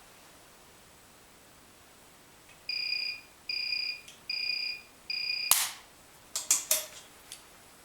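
SOKOL-THERM FPU 100 thermocouple welder giving four short beeps, then a sharp crack as it fires a weld on type K thermocouple wire, followed by a quick cluster of smaller snaps.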